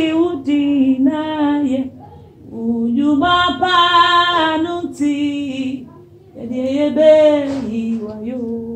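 A woman singing solo, unaccompanied, in three long sustained phrases with short pauses between them.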